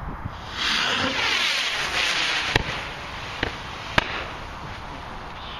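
Black powder firework rockets whooshing away with a loud hiss that starts about half a second in and fades after a couple of seconds. Three sharp bangs follow, a little under a second apart, as the rockets burst in the air.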